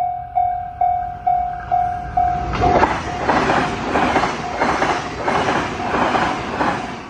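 Japanese railway level-crossing bell ringing about twice a second. About two and a half seconds in, a train passes over the crossing with a rhythmic clatter of wheels on the rails that drowns the bell until near the end.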